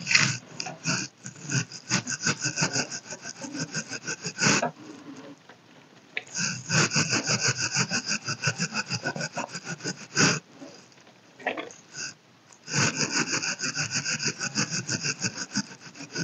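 Powder contour brush rubbed back and forth over the cheek in quick scratchy strokes, about four or five a second, in three runs with short pauses between them, heard close up on a clip-on microphone.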